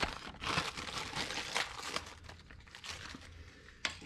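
Crinkling and rustling from something being handled and rummaged through, loudest in the first two seconds, with a sharp click near the end.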